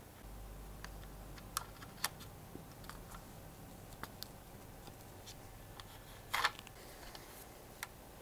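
Faint, scattered small clicks and taps of a model car being handled in gloved hands and with tweezers, with one louder scraping click about six and a half seconds in, over a faint low hum.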